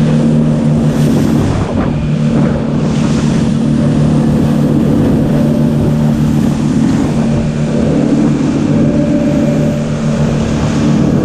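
Twin Suzuki 200 outboard motors running at speed in a steady drone, with rushing water and spray from the hull.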